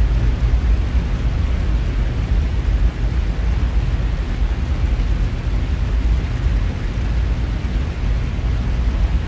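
Steady rushing noise of a rainstorm, with a deep low rumble under it.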